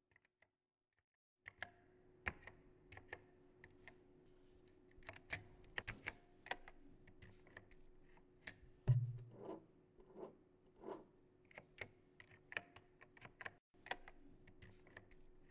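Keys being typed on a computer keyboard: faint, irregular clicks, a few a second, starting about a second and a half in, with one heavier thump about nine seconds in.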